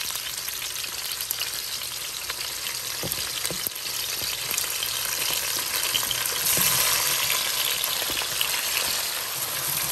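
Hot oil sizzling steadily around sliced onions frying in a stainless steel pot, with a few light knocks. The sizzle grows louder past the middle as diced tomatoes are scraped off a cutting board into the hot oil.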